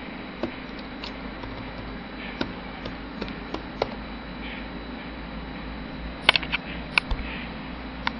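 Scattered sharp single clicks from a laptop's keys and mouse buttons as text is entered, over a steady background hum; a louder cluster of clicks comes about six to seven seconds in.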